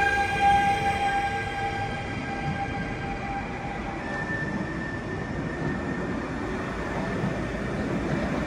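A Stadler FLIRT electric multiple unit (TILO RABe 524) pulling out and rolling past close by, with wheels rumbling on the rails. A steady electric whine fades over the first few seconds, and a higher whine comes in about four seconds in.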